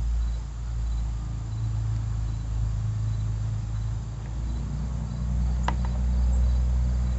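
Low steady engine hum of a slow-moving vehicle, getting louder about five seconds in, with one short high chirp near the end.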